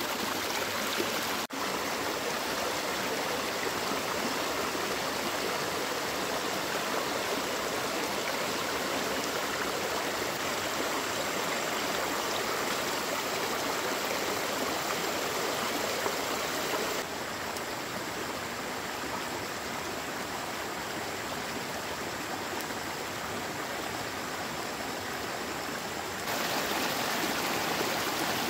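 Shallow stream water rushing steadily over and through a split-bamboo fish trap. Softer for several seconds past the middle, then louder again near the end.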